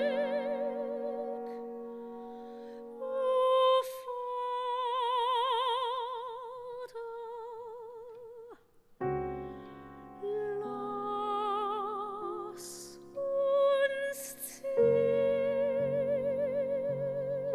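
Classical soprano singing long held notes with a wide vibrato over grand piano accompaniment in a German art song. About nine seconds in, after a brief hush, the piano comes in with deep low chords and the voice returns on sustained notes.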